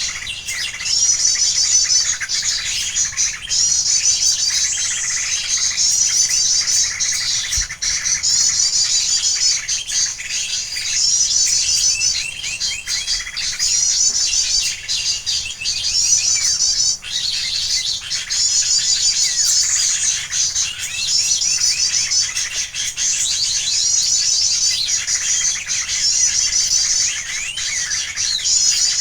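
Bird-call lure recording played on a loop: a high, rapid twittering phrase repeated over and over at even intervals of about one and a half to two seconds, with other birds calling at a lower pitch beneath it.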